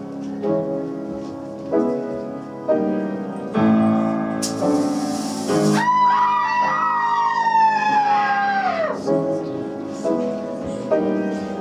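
Live keyboard music in a piano sound: chords struck and held, changing about once a second. About halfway through, a short hiss is followed by a long, high wailing tone that sags slowly in pitch and drops away about three seconds later.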